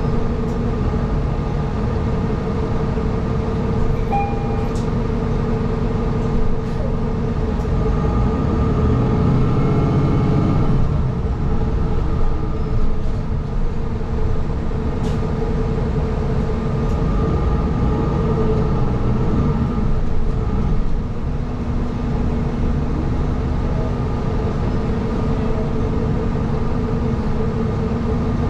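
City transit bus running, heard from inside the cabin: a steady engine hum over low road rumble, swelling for a few seconds about ten seconds in, with a few light clicks and rattles.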